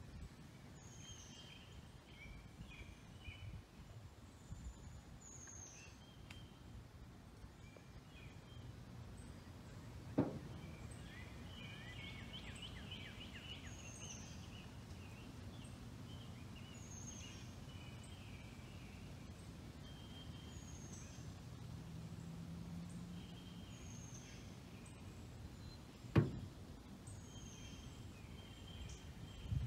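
Birds singing in riverside woods: a short, high, down-slurred call repeated every couple of seconds over softer chattering notes. Two sharp knocks stand out, one about ten seconds in and one a few seconds before the end.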